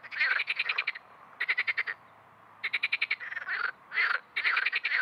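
Marsh frog croaking with its paired vocal sacs at the corners of the mouth puffed out: five or six rapid rattling calls, each a quick train of pulses lasting about half a second to a second, with short pauses between.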